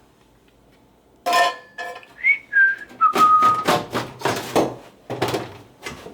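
A few short whistled notes, some held and some gliding, followed by a run of noisy clattering bursts.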